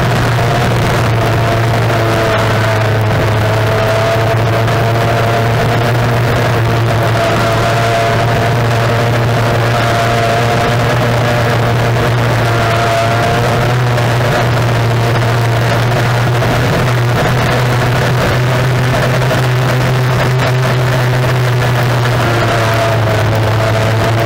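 Mercury Racing outboard on a tunnel-hull race boat running flat out at a nearly steady pitch, heard loud and close from on board, with wind and water noise over it.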